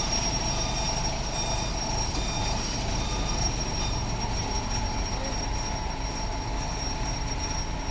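Industrial machinery running steadily: a continuous low rumble with a constant high-pitched whine above it.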